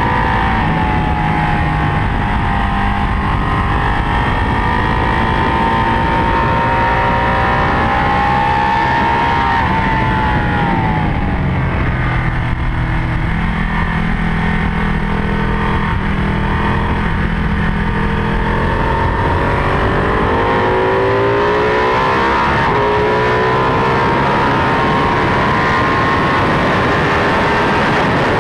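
Ducati 1199 Panigale's Superquadro V-twin engine running hard, heard from on board the bike. Its pitch climbs slowly, drops about ten seconds in as the bike slows, stays low for several seconds, then rises steadily again from about twenty seconds in as it accelerates.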